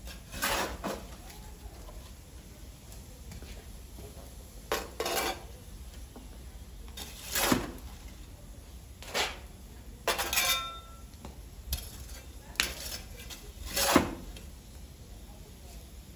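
A long-handled iron fire tool scraping over the hearth floor and clinking as it drags glowing embers out of the fire and under a gridiron. It comes as about seven separate scrapes and clinks a second or two apart, one with a brief metallic ring about ten seconds in.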